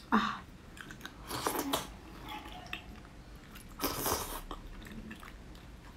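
Close-up wet eating sounds of soft bone marrow being scooped from a cooked marrow bone with a spoon and taken into the mouth, in three short bursts about a second, a second and a half, and two and a half seconds apart.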